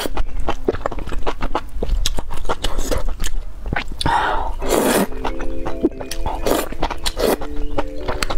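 Close-miked eating: wet chewing clicks throughout, and a long slurp of a mouthful of thin strands from spicy broth about four seconds in. Background music with held notes plays underneath.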